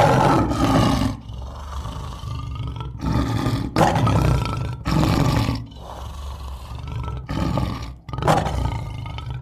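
Male lion roaring: a series of deep roars, each about half a second to a second long, repeating every second or two.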